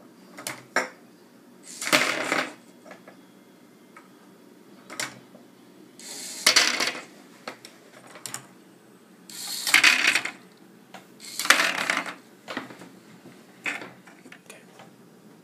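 Lego NXT ball-sorting machine at work: short clattering bursts, four loud ones and several smaller clicks, as plastic balls run down the Lego ramp and the NXT motors turn to send them into their paths.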